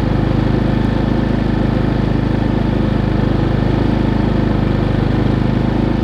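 Harbor Freight Predator 3500 inverter generator's single-cylinder four-stroke engine running steadily under a light load from an RV's battery charger and refrigerator.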